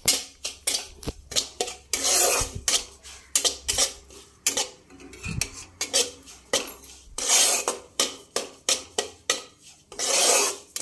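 A metal spatula scraping and stirring semolina (suji) as it roasts in ghee in a kadai, on the way to suji kheer. The spatula makes quick, uneven strokes against the pan, two or three a second, with a few longer sweeps.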